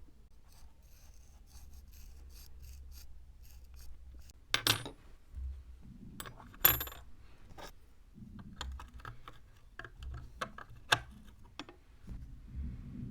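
Metal clinks and clicks of small steel parts of the restored twig scissors being handled. Two sharper clinks ring briefly about four and a half and six and a half seconds in, followed by a run of lighter clicks.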